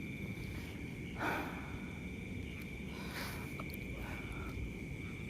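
Steady high-pitched drone of night insects, with two short rustles about one and three seconds in.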